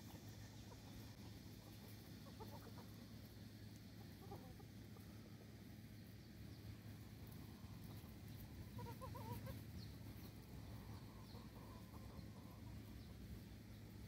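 Gamefowl chickens clucking faintly, a few short calls about two, four and nine seconds in, the one near nine seconds the loudest, over a steady low hum.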